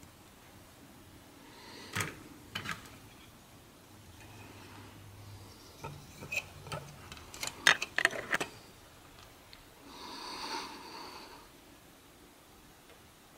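Plastic Lego pieces handled close to the microphone: scattered clicks and taps, a couple about two seconds in and a quick cluster around the middle, followed by a short breathy hiss near the end.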